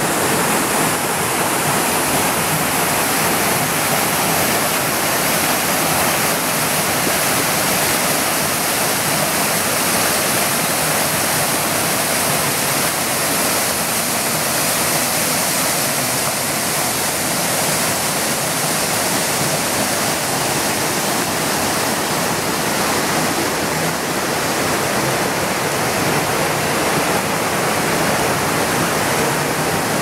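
Small waterfall cascading over boulders into a pool: a loud, steady rush of falling water.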